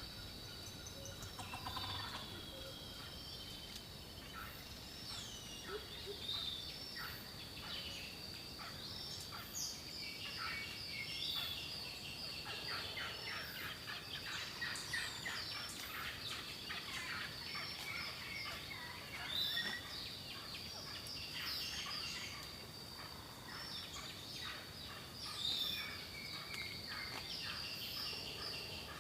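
Turkeys calling: a continuous stream of short clucking and chattering calls from several birds, with occasional louder calls standing out.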